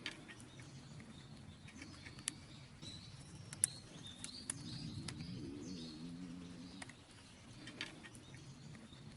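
Wild boar's faint, low, drawn-out grunt, a 'guu~' snore-like rumble that bends up and down for about two seconds from about halfway through. Small birds chirp over it.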